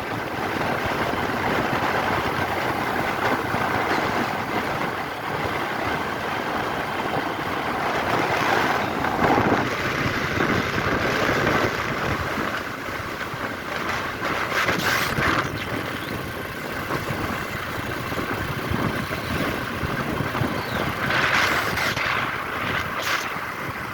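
Road traffic: vehicles running past in a steady rush, swelling as some pass closer.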